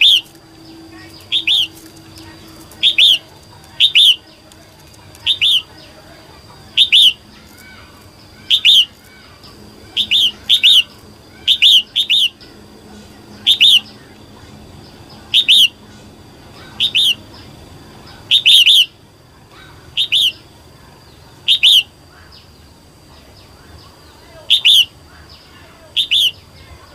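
Female red-whiskered bulbul calling: short, sharp, high-pitched calls repeated every second or two, each a quick two- or three-note burst.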